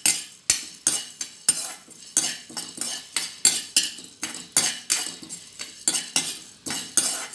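A steel ladle stirring and scraping chana dal around a black kadai as the dal roasts, a steady run of metal scrapes and clinks, about three strokes a second.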